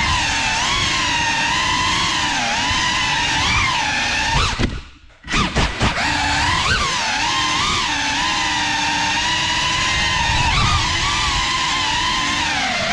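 GEPRC Cinelog 35 cinewhoop's motors whining, the pitch wavering up and down with throttle. About halfway through the sound drops almost out for half a second, then comes back in a few short stuttering blips before the steady whine resumes.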